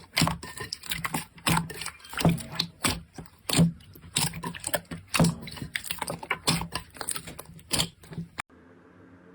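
Slime being squeezed and poked by hand, giving quick, irregular sticky clicks and pops. Near the end they cut off abruptly, leaving a faint steady hum.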